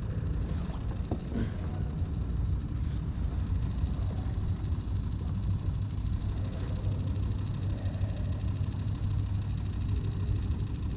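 Steady low rumble of distant car engines and traffic, with a few faint ticks about a second in.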